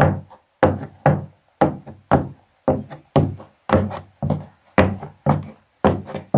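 High-heeled shoes walking at an even pace, each heel strike a sharp click with a short ringing tail, about two steps a second.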